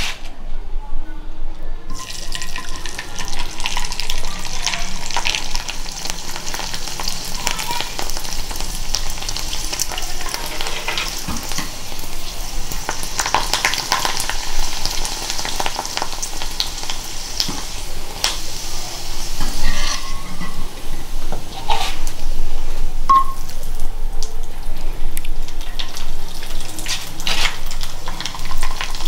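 Hot oil sizzling in a kadhai as a fryum (kharodi) deep-fries and puffs up in it, with scattered pops and crackles. The sizzle starts about two seconds in.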